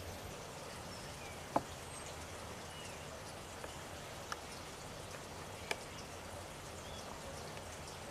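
Outdoor garden ambience: a steady hiss with faint, brief small-bird chirps and three sharp ticks spread through it.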